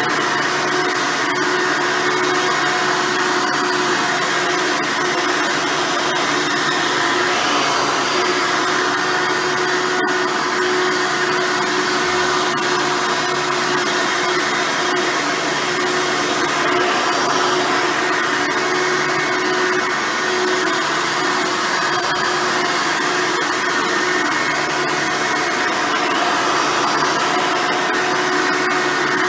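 Hoover Soft & Light Supreme upright vacuum running steadily on its original 7-amp motor with a 7-bladed fan: a loud, even rush of air with a steady whine. It is the usual running sound of this motor, which its owner calls screaming and overly loud.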